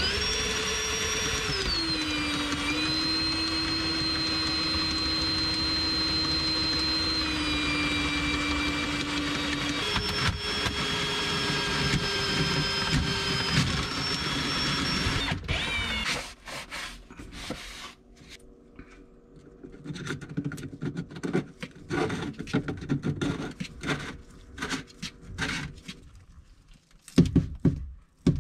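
RIDGID cordless drill spinning a RIDGID PowerSpin+ drain snake's cable into a clogged drain pipe: a steady motor whine for about sixteen seconds, its pitch stepping down slightly a couple of times. Then the drill stops and there are scattered clicks and knocks from handling the cable, with one louder knock near the end.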